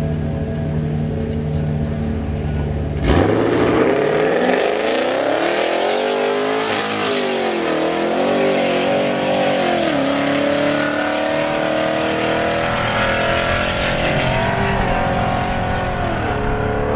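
Drag-racing car launching from the starting line: the engine rumbles, then about three seconds in it suddenly goes to full throttle, its pitch climbing and dropping back with each of several upshifts as the car accelerates down the track.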